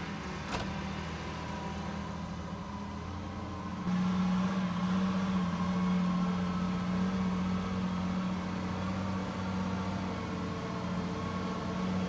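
Heavy diesel engine running steadily with a low hum. About four seconds in it gets louder and its tone firms up, as if under more throttle.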